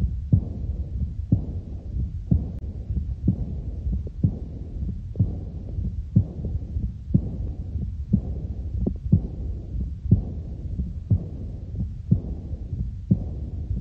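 Heart sounds from a stethoscope recording: a steady beat about once a second, with a rushing noise filling most of the gap between beats.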